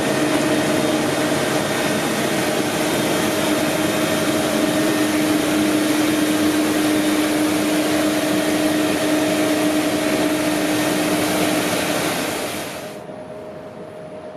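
Truck-mounted street sweeper running, its suction fan and brushes making a loud steady hiss over a steady hum. The sound cuts off suddenly near the end.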